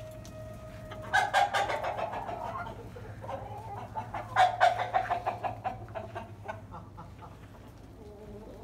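A flock of desi (free-range village) chickens clucking in rapid runs of short calls as they are let out of their coop. The calls start about a second in, are loudest around one and four seconds in, and thin out toward the end.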